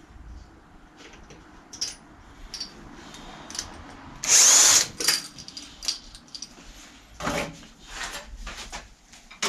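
Cordless drill run in one short, loud burst about four seconds in, among scattered clicks and knocks of tools and small parts handled on a workbench.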